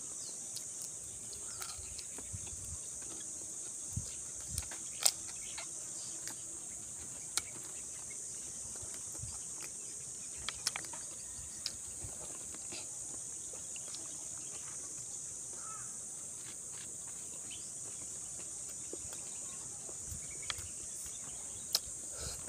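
Insects droning steadily in a high-pitched band, with scattered short sharp clicks and smacks from eating crispy pork and rice by hand; the sharpest click comes about five seconds in.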